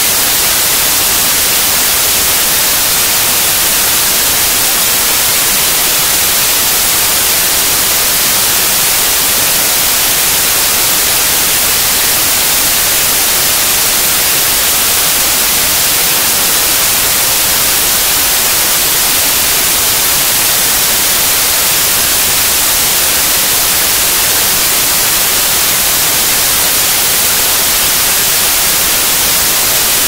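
White noise: a steady, loud, unchanging hiss spread evenly across all pitches, sounding brightest in the treble.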